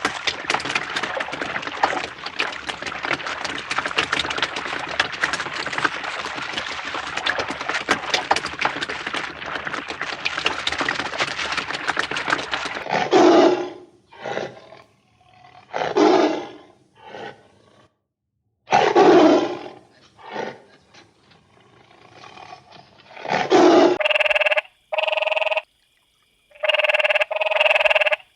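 Animal calls: a long, dense, rasping growl for about thirteen seconds, then a string of separate short calls, and near the end a run of short, evenly pitched calls.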